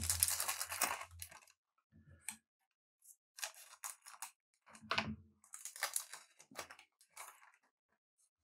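Trading cards and their pack wrappers being handled: paper and foil rustling and crinkling, a longer stretch in the first second and a half, then short scattered rustles that die away about a second before the end.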